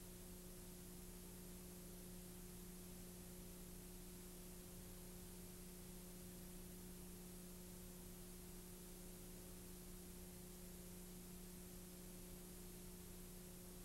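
Near silence: a faint steady electrical hum under a constant hiss, the noise floor of a blank recording.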